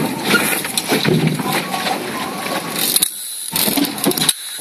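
Wind buffeting the microphone, a loud, rough noise that drops out briefly about three seconds in and again near the end.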